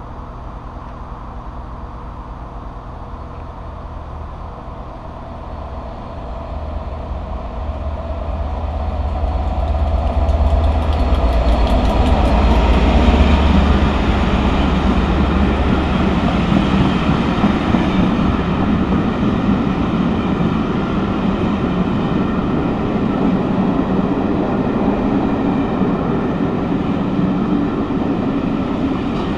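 Class 67 diesel locomotive with its EMD two-stroke V12 approaching and passing through a station, its low engine rumble building to a peak about a dozen seconds in. It is followed by the steady rumble and clatter of passenger coaches rolling past on the rails.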